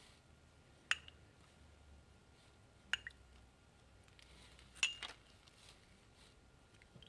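Three light glass clinks about two seconds apart, each ringing briefly: a pastry brush knocking against the rim of a small cut-glass jug as it is dipped in syrup.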